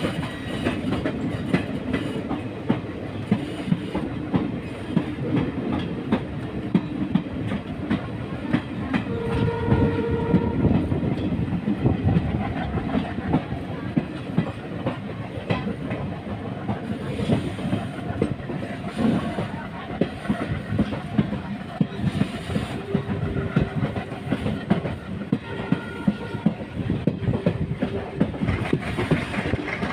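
Passenger train running along the track, its wheels clattering over the rail joints with repeated clicks. A short horn sounds about nine seconds in.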